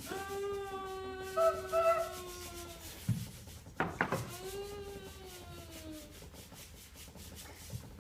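Sandpaper rubbed in a quick, even rhythm as a homemade steam-train effect. Over it come two long, slightly falling whistle-like 'woo' tones, the second starting about four seconds in, with a couple of sharp sounds between them.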